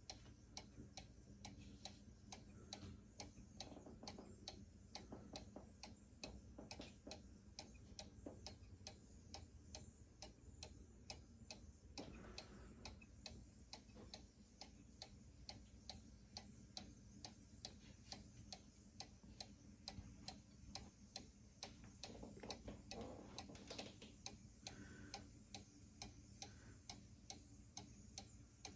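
One-day mechanical movement of a carved wooden musical cuckoo clock ticking faintly, with an even, quick tick-tock from the pendulum escapement.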